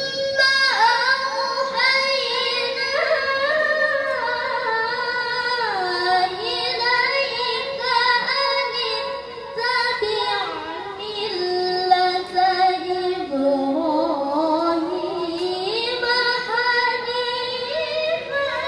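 A young female qari'ah's solo Qur'an recitation (tilawah) into a microphone: long melismatic phrases with held notes that glide up and down in pitch.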